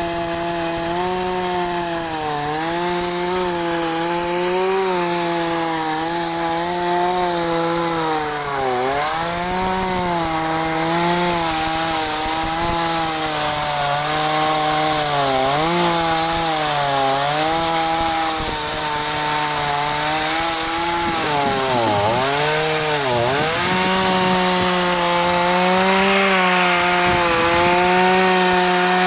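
Kawashima two-stroke chainsaw running at high revs while cutting through a wooden stump, sawdust flying. The engine pitch dips briefly each time the chain bites harder into the wood, with two deep dips about three quarters of the way through.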